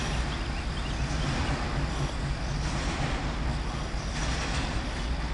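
Double-stack intermodal freight train rolling past: a steady rumble of wheels on rail.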